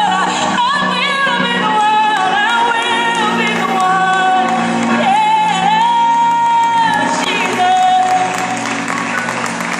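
Recorded gospel song played over a loudspeaker: a woman's voice holds long notes that slide up and down in pitch over a steady accompaniment. The singing stops about eight seconds in.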